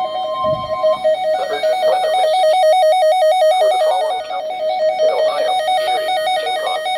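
Weather radio receiver's alert alarm: a loud electronic warble flipping rapidly between two pitches. Under it, the steady NOAA Weather Radio warning alarm tone stops about a second in.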